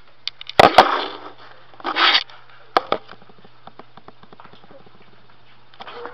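Camera handling noise: two loud knocks just under a second in, a short rustling burst around two seconds, another knock, then faint rapid clicking over a steady low hum.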